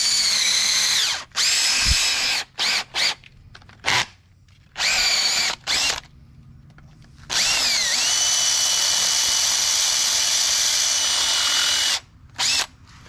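Cordless drill with a twist bit boring through a black plastic speaker mount: the motor whines in a string of short trigger pulls, then runs steadily for about four seconds, its pitch settling as it comes up to speed, and stops, with one more short blip after.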